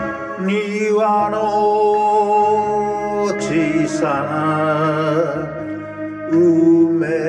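Backing music of a Japanese ginei kayō recitation song: a melody of long held notes with vibrato over the accompaniment.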